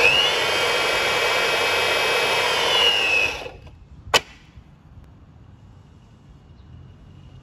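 Cactus SEP-30 electric hydraulic pump running, with a high whine that sags in pitch just before it cuts off about three and a half seconds in, as the SH-325 crimping head presses its dies closed on a cable. A single sharp click follows about half a second later.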